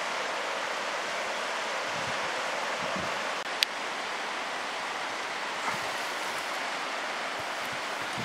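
Steady rushing outdoor background noise, even and unbroken, with one sharp click about three and a half seconds in.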